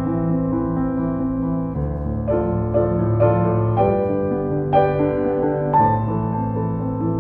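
Background piano music: a slow, calm keyboard piece with sustained chords, a low bass change about two seconds in and higher notes entering around five and six seconds.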